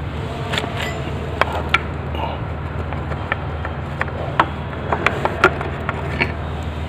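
Scattered sharp clicks and light knocks of a metal front-sprocket cover being worked loose and lifted off a Bajaj Pulsar 150 engine case, the loudest knocks about four and a half to five and a half seconds in, over a steady low hum.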